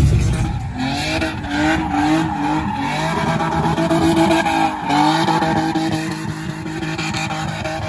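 A vehicle doing a burnout: tyres squealing in a long, wavering screech over the running engine.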